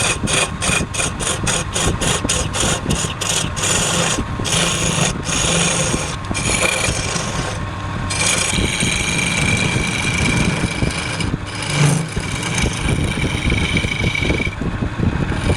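Wood lathe running while a turning tool cuts the spinning wood. The cutting noise comes in short, rapid strokes at first, then runs steadier with a thin high whine from about halfway through.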